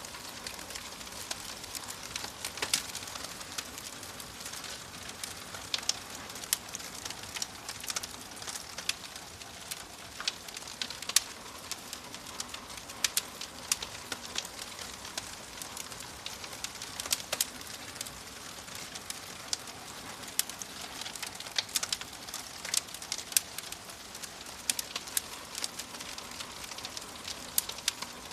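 Wood fire crackling in a fireplace: a steady soft hiss with frequent sharp, irregular pops and snaps.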